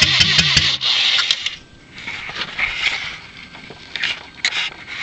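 1997 Saturn's four-cylinder engine cranking on the starter with the gas pedal pressed, in a fast even rhythm of about six or seven turns a second, then stopping less than a second in without firing: the car cranks but won't start. Light mechanical clicks and rattles follow.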